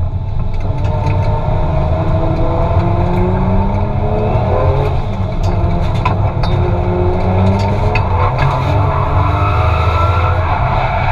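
Toyota 2JZ inline-six with a T78 turbocharger in a Nissan Silvia S15, heard from inside the cabin while being driven hard, its revs rising and falling several times.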